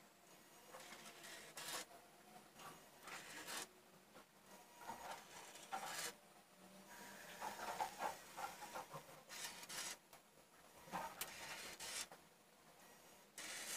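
Small Cubelets-and-LEGO robot at work: short, irregular bursts of faint whirring and scraping as its motors move it and plastic blocks are shifted across the table.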